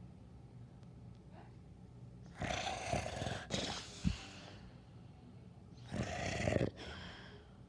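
Dog snoring in its sleep: a long snore starting about two and a half seconds in, lasting well over a second, and another shorter snore about six seconds in, with quiet breathing between.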